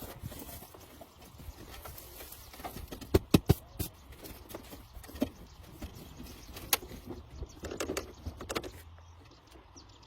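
Irregular knocks and clicks over a low background noise, the loudest a pair of sharp knocks about three seconds in.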